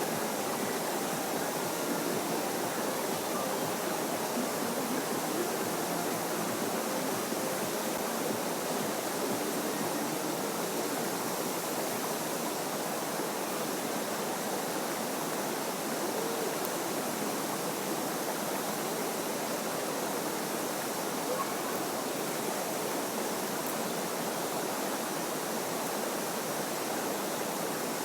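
Steady rushing of a stream or river's flowing water, even and unbroken.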